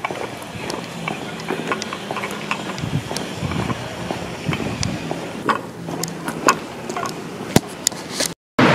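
Footsteps and small scattered clicks on a street over a steady hum of traffic. The sound cuts out briefly near the end.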